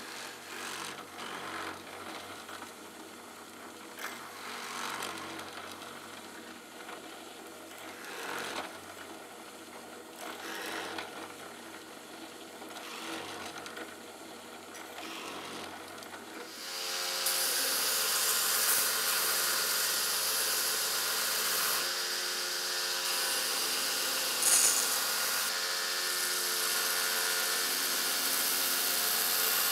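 Drill press running, with repeated bursts as the bit cuts through a stabilized walnut knife-handle scale. About seventeen seconds in, a belt grinder takes over, louder and steady, as the pinned handle is held against the belt.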